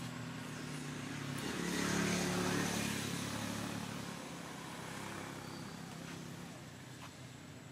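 A motor vehicle's engine humming as it passes, swelling to its loudest about two seconds in and then fading.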